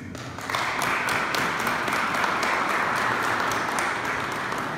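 Audience applauding in a hall, dense clapping that swells in about half a second in.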